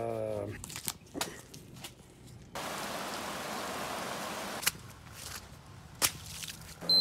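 Steady heavy rain, starting suddenly about two and a half seconds in and lasting about two seconds. Scattered clicks and knocks of the phone being handled come before and after it.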